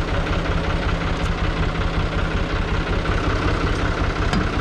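Türk Fiat 480 tractor's diesel engine idling steadily with an even low pulsing rumble, plus a couple of faint clicks.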